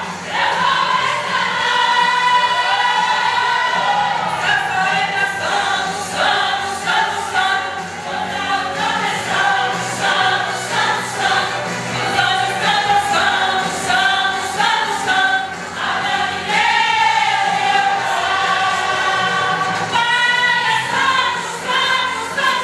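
A church vocal group singing a gospel hymn together in several voices, continuously.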